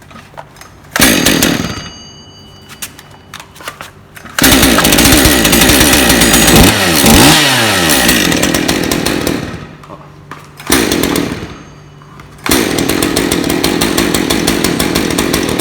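Stihl MS 201 C-M two-stroke chainsaw engine running in bursts during an electronic diagnostic test of its M-Tronic system: a short burst about a second in, a run of about five seconds with the engine speed dipping and rising, a stop, another short burst, then steady running from about twelve seconds in.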